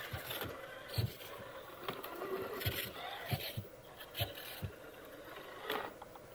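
Traxxas TRX-4 Defender RC crawler, with a Hobbywing Fusion brushless motor on 3S, crawling over rocks: a faint steady drivetrain noise with irregular knocks and scrapes as the tires and chassis bump across the stone.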